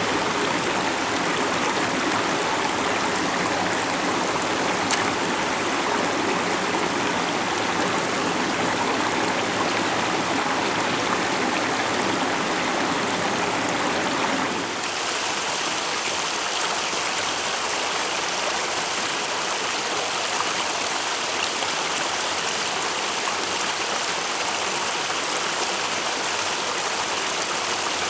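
Mountain headwater stream running over rocks, a steady rush of water. About halfway through it cuts to a different stretch of stream with a thinner, less deep sound.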